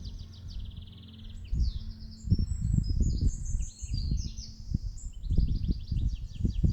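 Small songbird singing rapid, varied trills and twittering phrases, high-pitched and continuous. Irregular low buffeting rumbles sound underneath from about a second and a half in.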